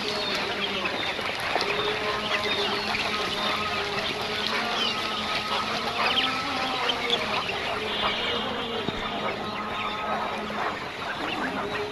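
A flock of young quails calling together: a dense, steady chatter of many short overlapping chirps and calls.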